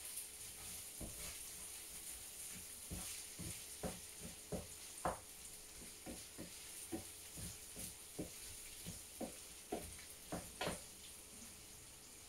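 Chicken empanada filling sizzling in a frying pan with a steady high hiss, while a spoon stirs it and knocks against the pan about twenty times at an irregular pace.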